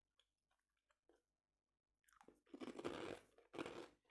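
Close-miked crunching as food is bitten and chewed, in two bursts about halfway through after a near-silent start.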